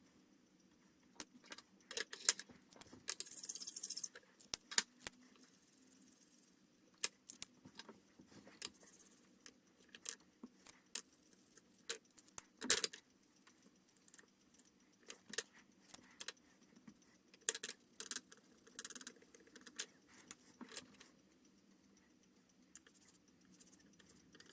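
Light clicks, taps and small rattles of pens and packaging being handled, irregular throughout, with a brief rustle about three to four seconds in.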